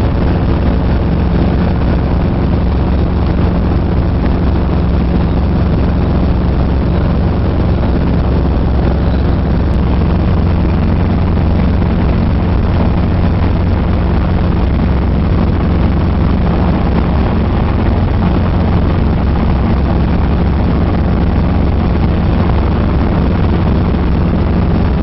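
Helicopter noise heard from inside the cabin: the engine and rotor running with a steady, loud, low drone, and wind rushing in through the open side of the cabin.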